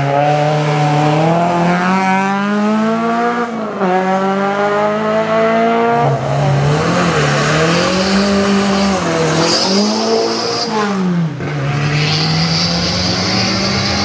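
Rally car engines revving hard. In the first half the pitch climbs and drops with each gear change; after that the revs swell up and down quickly. A high, steady squeal comes in twice in the second half.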